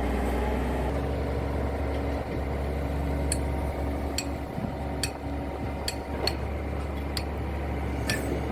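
An engine running steadily, with about seven sharp metallic clinks roughly a second apart from about three seconds in.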